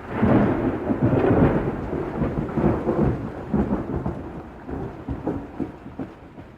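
A thunderclap breaks suddenly at the start and rolls on as a deep rumble, loudest over the first three seconds, then fading through a few weaker rolls. Steady rain falls underneath.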